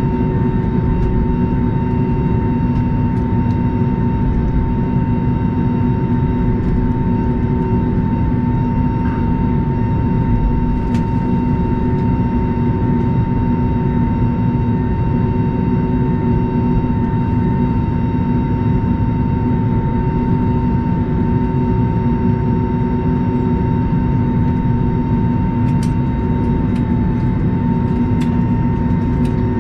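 Airbus A320neo cabin noise on the ground after landing: a steady low rumble from the engines and air system with a constant high whine. A few faint clicks near the end.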